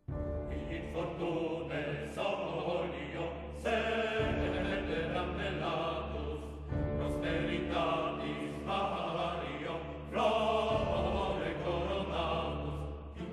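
Background music with a choir singing, beginning suddenly as a new piece.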